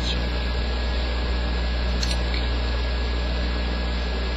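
Steady low electrical hum with an even hiss over it, and a few faint light clicks.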